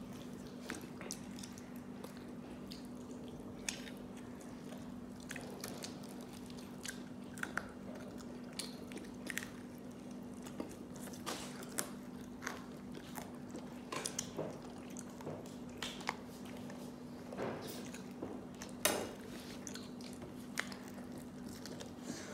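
Close-up chewing and biting into breaded fried chicken: scattered short, wet smacks and crunches, a little louder near the end, over a steady low hum.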